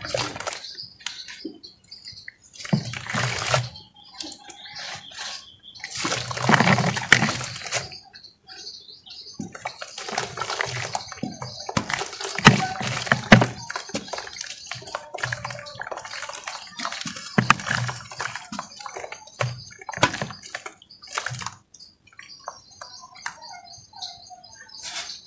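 Lumps of dry red dirt crumbled by hand, the powder pouring and sprinkling into a pot of water in irregular bursts with short pauses between them.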